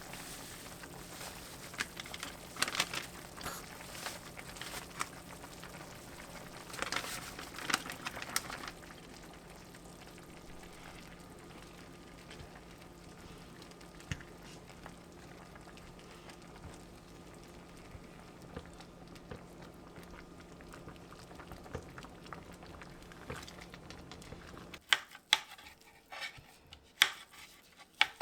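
A pot of liquid bubbling on the stove over a steady low hum. Near the end the hum stops and a few sharp knocks follow, like a knife striking a cutting board.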